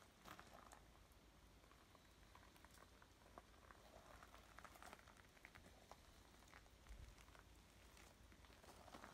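Near silence, with faint scattered ticks and light crackles.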